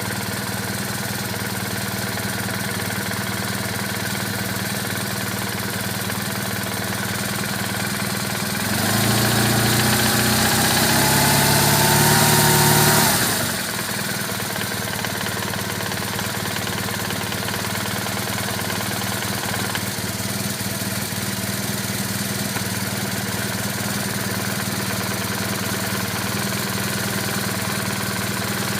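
BMW R1200R boxer-twin engine idling steadily, blipped once about nine seconds in with a rising rev for some four seconds, then settling back to idle. It is recorded to show a strange noise from the transmission.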